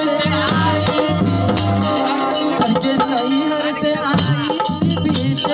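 Loud instrumental break of a live Bhojpuri folk song set to a birha tune, between sung lines: a melody over a pulsing bass line and a hand-drum beat, played through the stage sound system.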